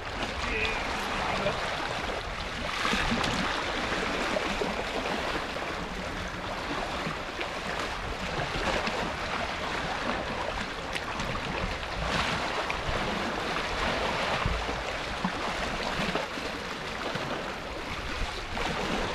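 Sea water washing and lapping against shoreline rocks, a steady rushing with small surges now and then.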